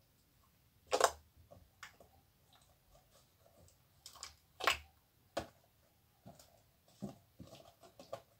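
Scattered plastic handling noises as runny, watery slime is poured from a clear plastic container into a plastic bowl: several short knocks and rustles, the loudest about a second in and again just before the middle.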